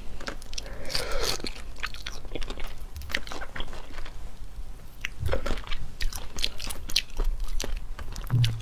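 Whole shrimp being eaten: shells cracked and peeled by hand, with crunchy biting and chewing, a dense run of irregular sharp crackles and clicks.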